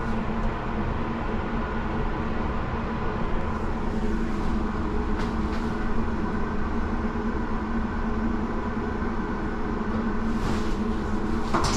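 Steady mechanical hum with a low rumble, heard inside an enclosed ferris wheel gondola as it moves past the boarding platform. A couple of brief rustles come near the end.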